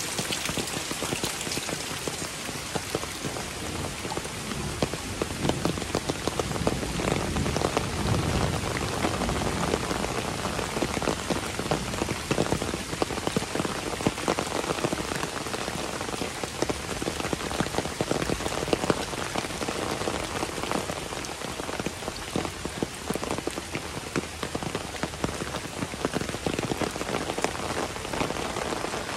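Heavy rain falling steadily, a dense patter of individual drops hitting the surfaces around.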